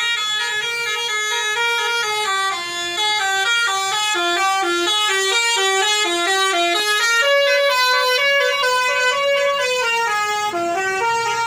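Indonesian bus 'telolet' horn, a multi-tone air horn, playing a quick melody of short stepped notes.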